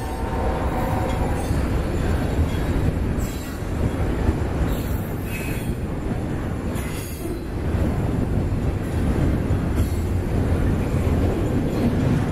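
Double-stack intermodal container cars rolling past at speed, steel wheels on rail making a steady rumble. A few brief high squeals from the wheels come about 3, 5 and 7 seconds in.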